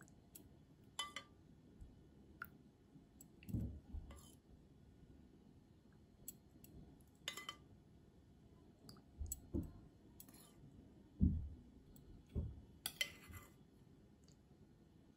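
Carbonated Chilsung Cider fizzing over kiwi pieces in a glass bowl: faint, scattered clicks and pops of bubbles bursting. A few soft low thumps come in between.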